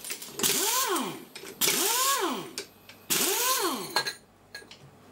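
Pneumatic impact wrench run in three short bursts, each spinning up and winding down in pitch over a hiss of exhaust air, as it backs bolts out of a cast-iron plate. A few light metallic clinks follow near the end.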